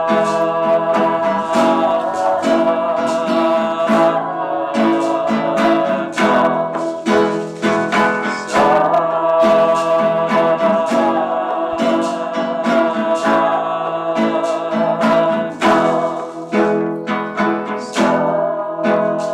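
Music: an acoustic guitar strummed steadily, with a long-held melody line above it that bends in pitch now and then.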